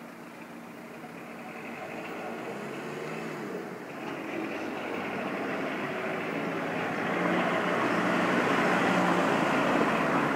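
Passing road traffic: the noise of a vehicle swells steadily louder over about eight seconds, then holds.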